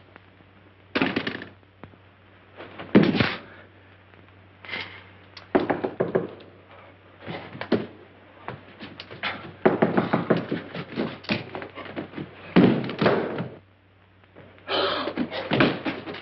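A run of door thuds, knocks and clatters, irregular and spread through the whole stretch, as a door is worked and things are bumped about. A steady low hum of the old film soundtrack runs underneath.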